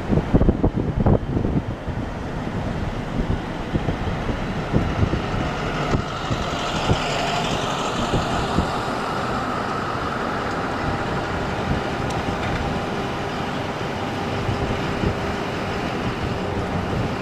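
Steady engine and traffic noise from motor vehicles, with wind buffeting the microphone during the first two seconds.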